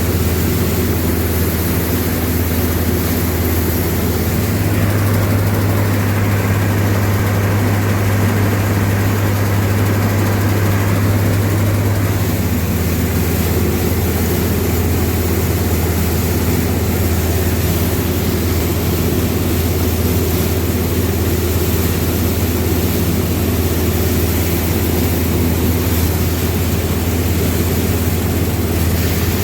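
Heavy harvesting machinery running steadily with a deep engine drone; the low hum shifts slightly for several seconds about a third of the way in.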